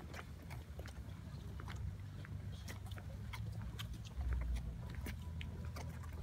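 Footsteps of many people walking on stone paving: a stream of irregular clicks and scuffs, over a low rumble that swells briefly about four seconds in.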